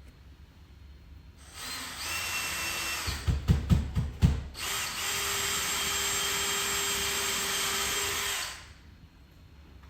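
Power drill running in two spells: a short run, then a few heavy knocks, then a steady run of about four seconds with an even whine, then it stops.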